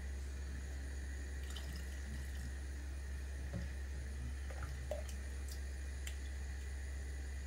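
Pot of thick pumpkin soup simmering, with scattered soft plops and a few light taps and scrapes of a spatula stirring it, over a steady low hum.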